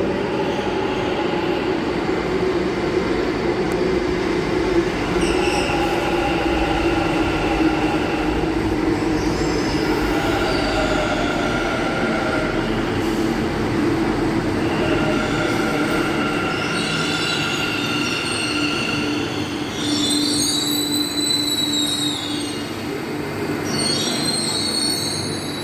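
Metro train running on the track: a steady rumble with high-pitched squealing and whining tones that come and go, strongest near the end.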